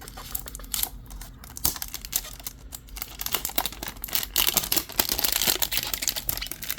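A 2025 Topps Update hanger box being opened by hand: cardboard and plastic wrapping crinkling and tearing in a dense run of small clicks and rustles, busier from about three seconds in. A clothes dryer hums low underneath.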